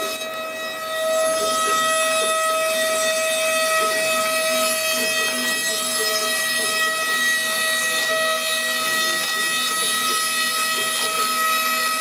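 CNC router spindle running with a steady high whine while its bit mills a wooden board, getting louder about a second in.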